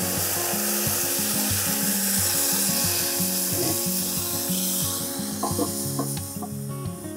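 Chicken stock poured into a hot cast-iron camp oven hissing as it hits the hot metal and flashes to steam, the hiss easing off about five seconds in. A few light clanks follow as the cast-iron lid goes back on.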